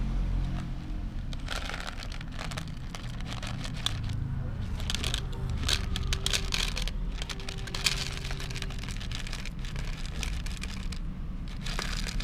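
Dry cat kibble pouring from a crinkling plastic bag and rattling into a small plastic tub, a run of quick clicks and rustles in uneven clusters.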